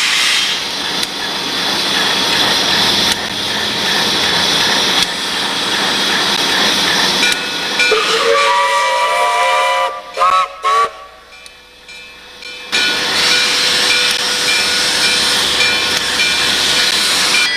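Alco RS-3 diesel locomotive close by, with a loud steady hissing rush. About 8 seconds in the hiss gives way to a chord of horn notes that slide upward, then two short horn toots. The hissing rush comes back a couple of seconds later.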